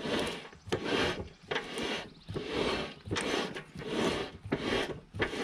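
Rear brake pads dragging on the disc of a 1986 Yamaha Moto 4 YFM200DX's single-piston cable-pull brake as the rear wheel is turned by hand: about six scraping rubs, roughly one a second. The light rub is the slight neutral drag he has set on the freshly rebuilt brake.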